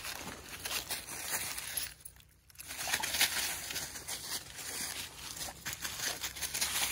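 Dry leaf litter rustling and crunching, with many small crackles as feet and paws move over it, briefly going quiet about two seconds in.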